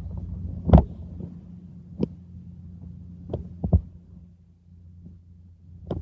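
Handling noise from a handheld camera and long lens: about six scattered knocks and clicks, the loudest about a second in and three close together midway, over a steady low hum.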